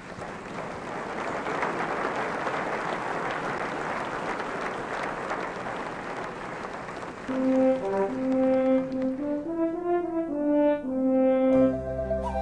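A large audience applauding for the first several seconds, then a slow brass melody comes in about seven seconds in, its notes held and moving step by step.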